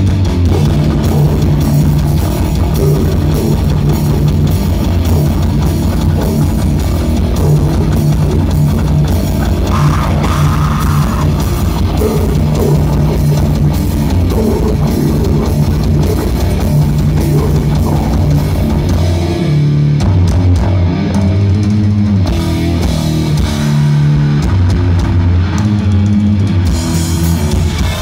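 A heavy metal band playing live: distorted electric guitars and bass over a drum kit, loud and dense. The riff changes about two-thirds of the way through.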